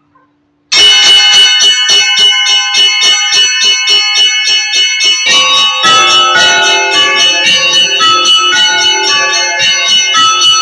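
Russian Orthodox church bells rung by hand: starting suddenly under a second in, a rapid run of small bells at about four to five strokes a second, with deeper bells joining about halfway for a fuller peal.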